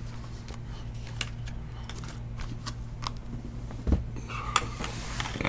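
Scattered light clicks and taps of shrink-wrapped cardboard trading-card boxes being handled and moved off a table, with a soft thump about four seconds in. A steady low hum runs underneath.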